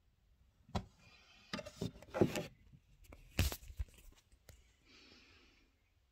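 Handling noises from makeup application: a few sharp clicks and knocks with scraping and rustling in between, as an eyeshadow palette and brush are picked up and worked, then a soft brushing hiss near the end.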